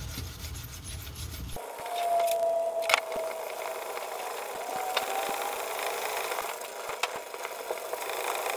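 An abrasive scouring pad scrubbing across a plastic motorcycle side panel in repeated one-direction strokes, with a few light clicks. The pad is scuffing off the glossy clear coat so that primer will stick.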